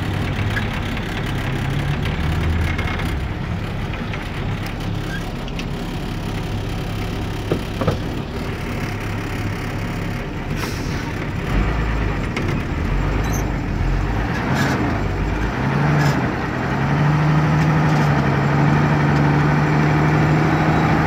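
Truck engine heard from inside the cab, pulling away in first gear and running on. A deeper rumble comes in for a few seconds around the middle, and the engine note then settles slightly higher and louder.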